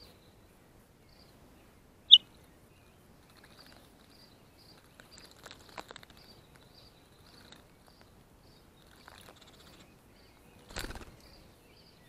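A Baltimore oriole splashing as it bathes in a shallow bird bath, with a louder burst of splashing near the end. Small birds chirp repeatedly throughout; one sharp chirp about two seconds in is the loudest sound.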